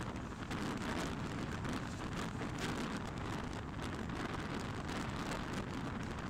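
Class S11 passenger train running along the track: a steady rush of wind and wheel-on-rail noise with a dense scatter of faint clicks.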